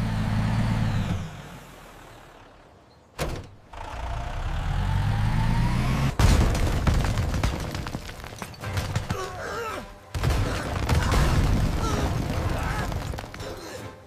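Animated sound effects: a heavy truck engine running, dying away, then building up again, followed about six seconds in by a sudden loud crash as a brick wall collapses, with rumbling and tumbling bricks after it.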